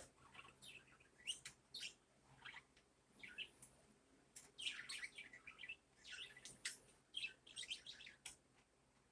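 Pet budgerigars chirping and warbling in short, irregular calls with quick rises and falls in pitch.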